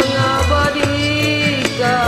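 Karaoke backing music with a steady beat: bass, percussion strikes and a held melody line.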